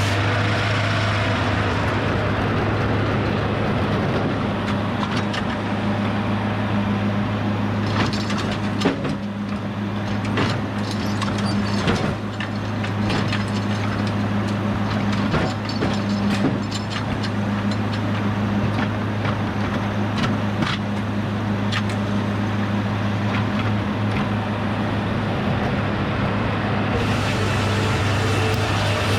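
The sawmill's engine runs with a steady hum. From about a third of the way in to about three quarters of the way through, a scatter of sharp wooden knocks and cracks sounds over it.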